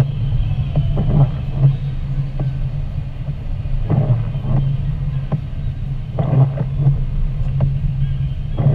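Steady low drone of a car driving on a wet highway, heard from inside the cabin, with irregular short swishes and knocks over it.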